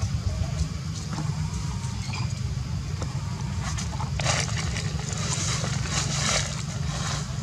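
A low, steady motor running, likely a vehicle engine, heard throughout. From about four to seven seconds in, a high hiss swells and fades in patches over it.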